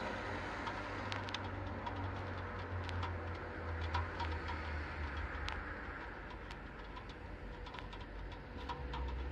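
Faint scattered clicks and taps of DJI Ronin-S gimbal parts and clamps being handled and fitted together, over a low, wavering rumble.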